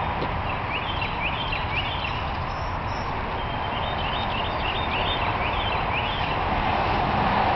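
A songbird singing two runs of quick, high, repeated notes over a steady rushing background noise.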